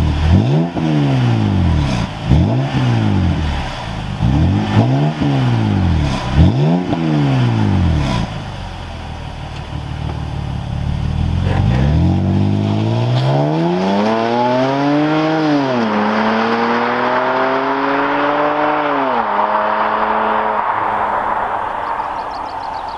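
BMW 330i E90's straight-six through an Eisenmann sport exhaust: about five quick throttle blips at a standstill, a few seconds of idle, then the car pulls away, its pitch rising through two upshifts before fading as it drives off.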